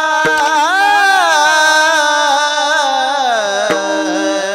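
A singer holds a long, ornamented 'aa' alaap in a Marathi devotional bhajan, wavering in pitch, over a steady drone; the voice slides down and fades after about three seconds.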